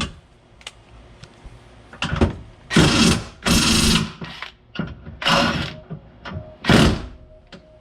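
Impact wrench hammering in a series of short bursts, about six over several seconds, on a tight seat bolt that has not yet broken free.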